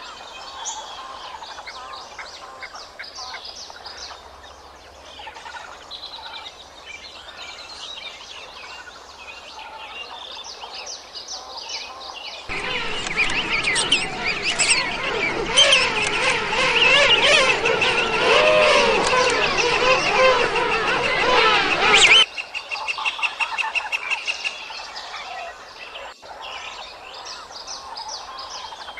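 A king penguin colony calling: a loud, dense clamour of many overlapping calls bending up and down in pitch, which starts and stops abruptly and lasts about ten seconds in the middle. Quieter bird chirps and calls come before and after it.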